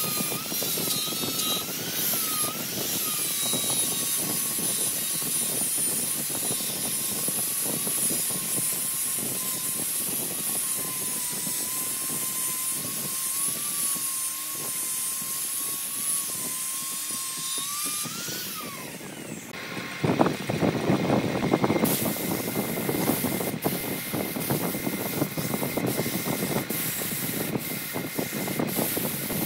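Angle grinder with a sanding disc running against spinning wood on a lathe, a steady whine that wavers in pitch over a sanding hiss. About two-thirds of the way through the whine falls away as the grinder spins down. After that comes a louder, rough sanding noise of a gloved hand held against the turning wood.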